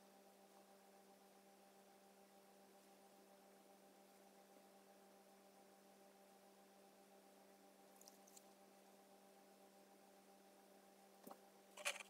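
Near silence with a steady low electrical hum. There is a faint brief noise about two-thirds of the way in and a small click near the end, then a short louder noise just before the end.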